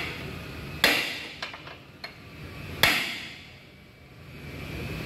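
Hammer striking steel at a car's front suspension and wheel hub: two hard blows about two seconds apart, each ringing briefly, with a few lighter taps between them.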